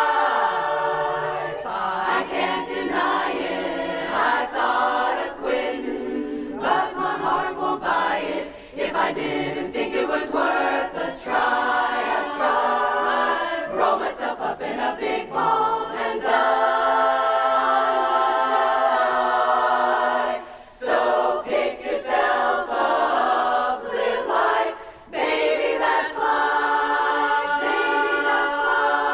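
Women's barbershop chorus singing a cappella, sustaining full close-harmony chords, with brief breaks between phrases about two-thirds of the way through.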